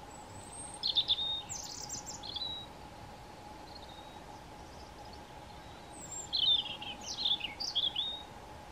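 European robin singing two short phrases of high, quickly changing warbled and trilled notes, a few seconds apart, over a faint steady hum.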